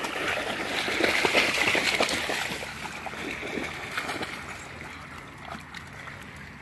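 Dogs wading and trotting through shallow lake water, their legs splashing and sloshing. The splashing is loudest in the first couple of seconds and grows fainter toward the end.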